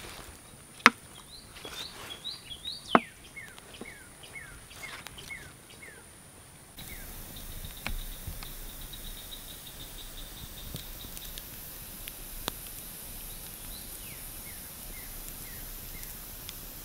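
Outdoor ambience: a bird singing series of short falling whistled notes over a steady high insect buzz. Two sharp clicks stand out about one and three seconds in. About seven seconds in the background changes to a brighter hiss with a pulsing insect drone.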